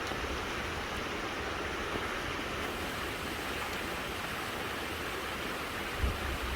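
A creek flowing steadily, with low wind rumble on the microphone about six seconds in.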